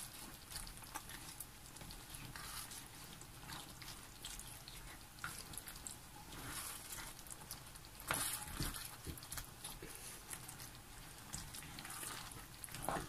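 Spatula stirring vegetables in a simmering sweet and sour sauce in a frying pan: soft, irregular clicks, scrapes and bubbling, with a couple of louder scrapes about eight seconds in and near the end.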